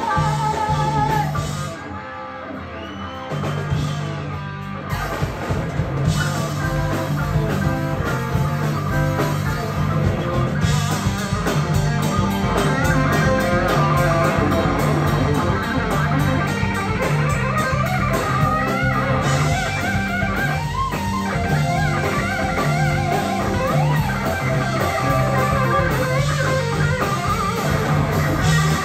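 Live rock band playing an instrumental section with electric guitars, bass and drums. The electric guitar plays bending lead lines in the middle of the passage. The music drops quieter for a moment about two seconds in.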